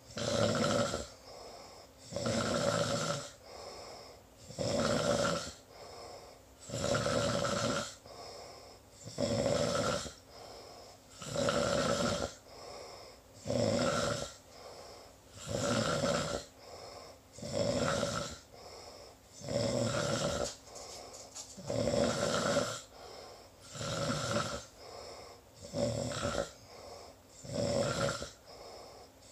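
Sleeper snoring in a steady rhythm: a loud snore about every two seconds, with a softer breath sound between each.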